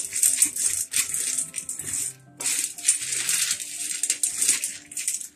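Turmeric-coated chickpeas rattling and scraping against a steel plate as a hand spreads them out, in stretches with a short pause about two seconds in. Faint background music underneath.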